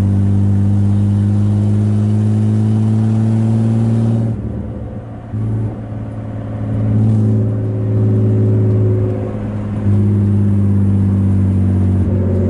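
BMW E36 325is straight-six engine pulling in gear, its note slowly rising for about four seconds. The note then drops away, and it picks back up and eases off a few more times before running steadily again.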